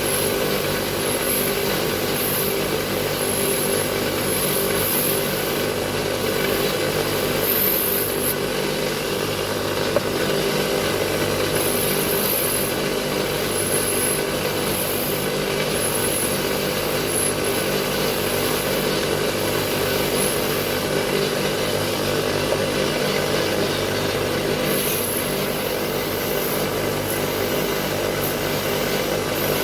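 Electric grinder fitted with a wire brush, running steadily while spark plugs are scrubbed clean against it. The bristles scrub over the motor's even hum.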